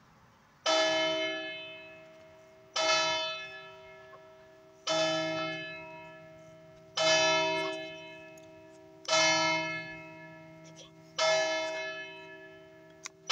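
A church tower bell, one of a set of three cast in 1909, struck six times at an even pace about two seconds apart. Each stroke is the same note, ringing out and fading before the next.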